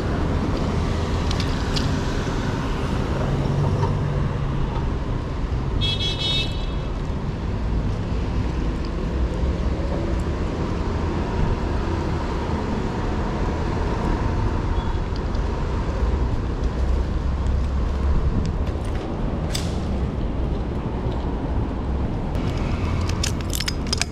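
City street traffic heard from a moving bicycle, over a steady low rumble of wind on the action camera's microphone. A brief high-pitched tone sounds about six seconds in, and a few sharp clicks come near the end.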